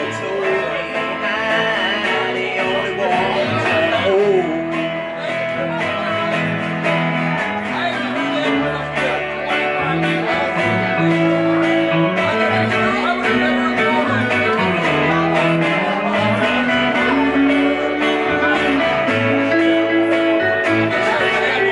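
Small country band playing an instrumental passage: electric guitar and strummed acoustic guitar over an upright double bass line that steps from note to note.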